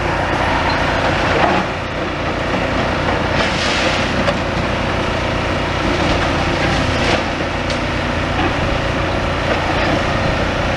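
Demolition excavator's diesel engine running steadily, with a few brief clatters of rubble, the loudest about four seconds in.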